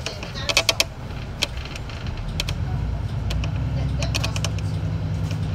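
A city bus's diesel engine running low and steady, with irregular bursts of sharp clicking and rattling over it.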